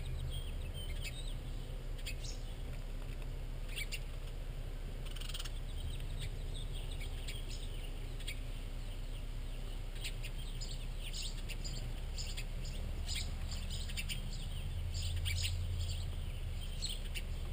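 House finches chirping and twittering around a feeder: many short, scattered chirps throughout, over a steady low hum.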